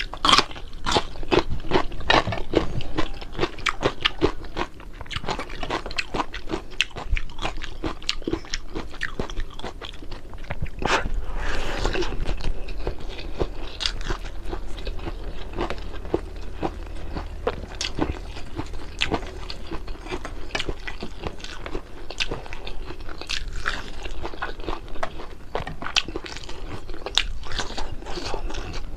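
Close-miked crunching and chewing of crispy fried fish, with irregular crackling bites throughout.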